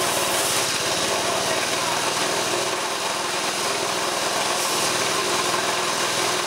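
Small single-cylinder Honda petrol engine running steadily under heavy load, governor wide open, belt-driving a wobble-plate car air-conditioning compressor that adds a rough, rasping grind.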